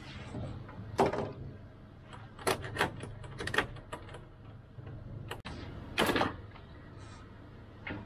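Irregular knocks and clunks as a Windrider 17 trimaran and its lines are tied off to a wooden dock, over a low steady hum. The loudest knocks come about a second in and about six seconds in.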